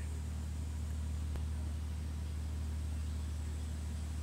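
Fishing boat's engine running at a steady pace: an even, low drone with a constant pitch. A single faint click comes about a second and a half in.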